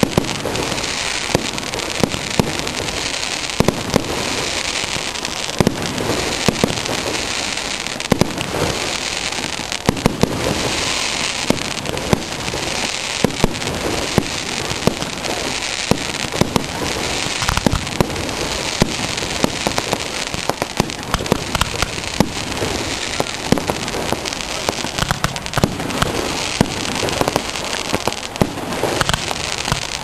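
Fireworks display: continuous dense crackling with many sharp bangs going off throughout.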